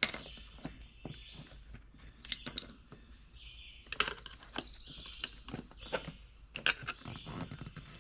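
A screwdriver prying a small wheelbarrow tire's bead off its steel rim: irregular clicks, knocks and scraping of metal against rubber and rim. The sharpest knocks come at the start, about halfway through and near the end.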